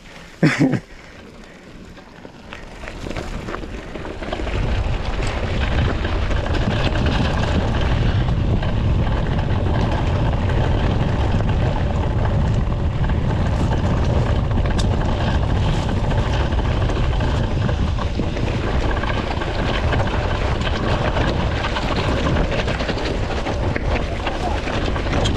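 Mountain bike rolling fast down a loose rocky trail: wind buffeting the chest-mounted microphone over the rattle and crunch of tyres on stones. It builds up over the first few seconds as the bike gathers speed, then stays steady.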